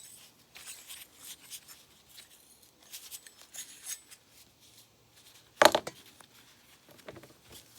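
Hand tools working on a small metal part: light clicks and scrapes, with one sharp loud clack a little past halfway.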